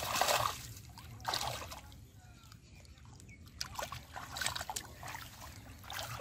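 Splashing and sloshing in shallow muddy water as bare hands grab at a fish, in irregular bursts: the loudest right at the start, another about a second in, then a run of splashes near the end.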